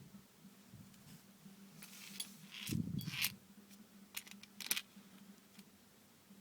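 Small clicks and light scrapes of a Bell & Ross watch and its strap-changing tool being handled, in short clusters, with a soft low thump about three seconds in. A steady low hum lies underneath.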